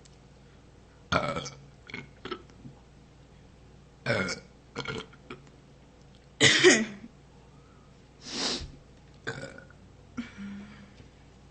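A young woman burping over and over: about six loud burps a second or two apart, some with smaller burps trailing after. The loudest comes about halfway through and drops in pitch.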